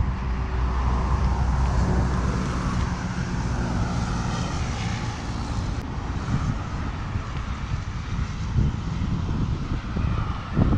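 Road traffic passing close by, with a heavy vehicle's engine hum early on, under wind rumble on a bike-mounted action camera's microphone.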